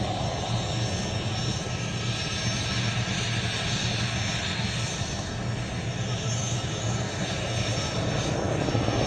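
Helicopter engine and rotor running steadily, a continuous drone with a low hum, getting a little louder near the end.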